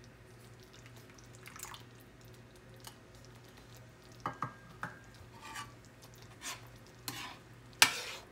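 Spoon tapping and scraping inside an opened can of coconut milk, then a metal spoon clinking and scraping in a wok as the coconut milk is stirred into the sauce. The sharpest clink comes near the end.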